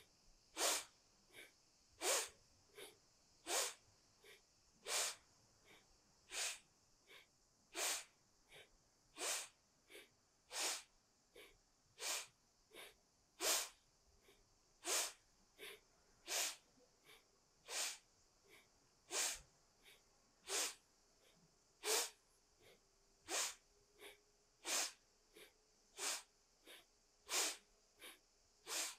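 A person doing forceful, rhythmic yoga breathing: sharp, audible breaths with loud and soft ones taking turns, about one pair every one and a half seconds, kept up steadily as she sways side to side with each inhale and exhale.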